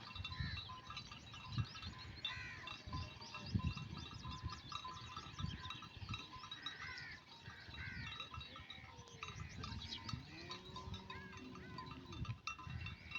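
Flock of dumba (fat-tailed) sheep grazing, with one drawn-out bleat about ten seconds in. Many short high chirps run throughout.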